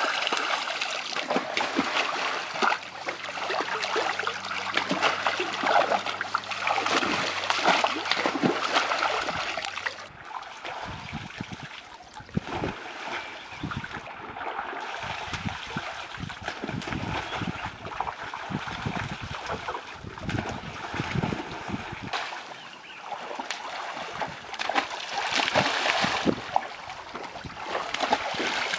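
Rainbow trout splashing in a crowded net, water slapping and splattering unevenly as dip nets scoop the fish out. A steady low hum runs under the first ten seconds or so, then stops.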